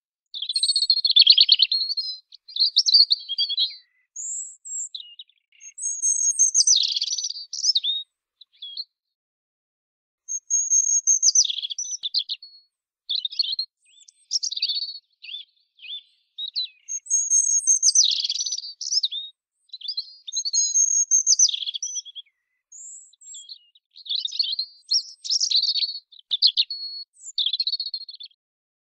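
European robin singing: a string of high, quickly varying warbled phrases, each a second or two long, separated by short pauses.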